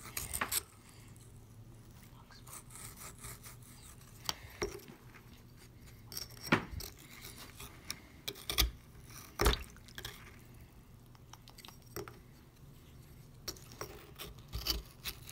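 Small plastic digging tools scraping and picking at a soft, wet excavation bar in a glass dish of water, with scattered sharp knocks and clicks of plastic against the bar and the glass.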